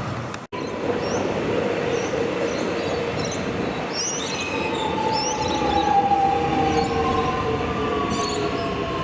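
Melbourne suburban electric train slowing into the platform: rumbling running noise with short high wheel and brake squeals, and an electric motor whine that falls steadily in pitch as it brakes.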